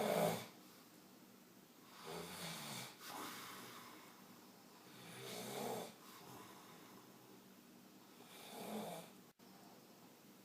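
A sleeping man snoring loudly, one rasping snore on each breath, about every three seconds.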